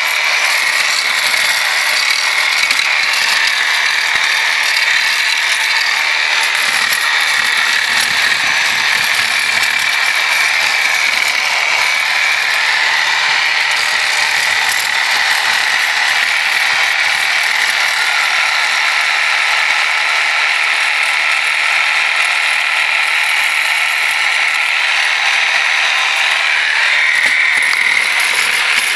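Reciprocating saw fitted with a flat scraper blade, running steadily with a high whine and rapid rattle as the blade chips barnacles off a boat's sterndrive lower unit.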